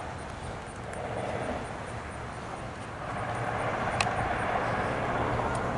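Loaded autorack freight train's steel wheels rolling on the rails, a steady noisy rumble that swells about three seconds in. One sharp click about four seconds in.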